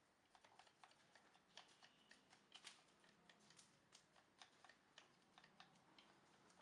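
Near silence with many faint, irregular light clicks and taps.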